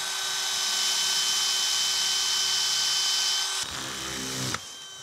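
Handheld electric drill running steadily as it drills the oil clearance hole back out through a newly fitted bronze bushing. About three and a half seconds in its sound turns lower and uneven, and it stops shortly before the end.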